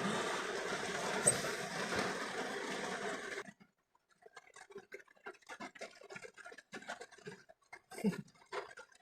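Steady rushing noise of a thunderstorm (rain and wind) on the microphone, which cuts off abruptly about three and a half seconds in. Faint scattered ticks and taps follow.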